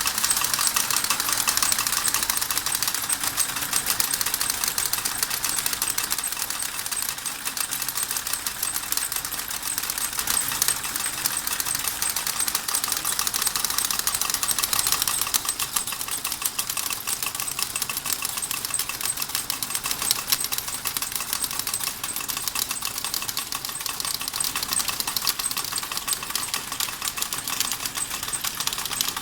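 D21 model steam engine running, with fast, continuous clattering and rattling from its moving parts.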